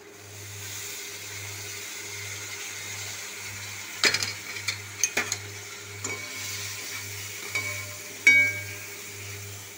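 Arbi (taro root) pieces frying in oil in a metal kadhai, a steady sizzle. From about four seconds in, a metal spoon stirs and clinks against the pan about seven times, several of the strikes ringing briefly.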